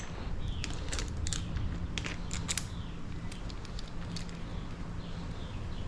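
Irregular light clicks and clinks of hand tools and metal parts being handled while loosening and refitting handlebar controls, over a steady low hum.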